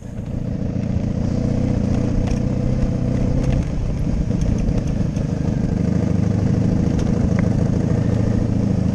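Motorcycle engine running steadily at low speed as the bike is ridden, with scattered light ticks and rattles.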